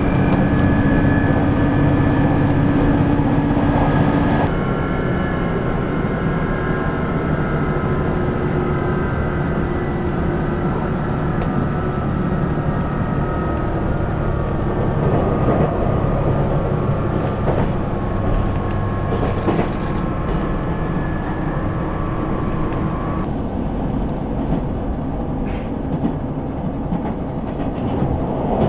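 Inside the passenger car of a JR Shikoku 2000 series diesel tilting express running: steady engine drone and rail rumble. A low steady note drops out about four seconds in, and a high whine slowly falls in pitch until it stops a few seconds before the end.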